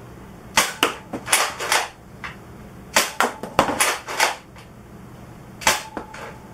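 Nerf Elite 2.0 Warden double-barrel pump-action dart shotgun being cocked and fired, two foam darts per shot: sharp plastic clacks and snaps in three bunches.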